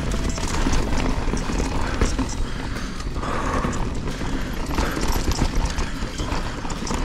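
Canyon Strive enduro mountain bike riding a rough dirt and rock trail: a continuous clatter of tyres on loose stones and the bike rattling over bumps, with wind rumbling on the camera microphone.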